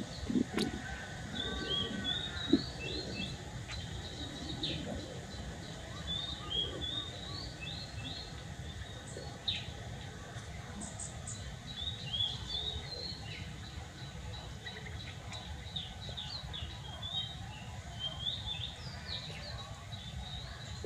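Small birds chirping in quick, short repeated notes throughout, over a steady low background rumble, with a couple of soft knocks in the first few seconds.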